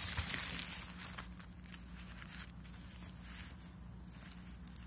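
Maternity pads and their plastic wrapper being handled and shifted about: a knock at the start, then soft crinkling and rustling that thins out to scattered faint rustles, over a steady low hum.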